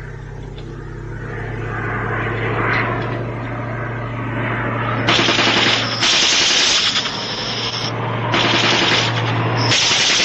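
A propeller aircraft's engine drones steadily, growing louder over the first few seconds. About halfway through, long bursts of machine-gun fire at the plane begin, several in a row with short breaks between them.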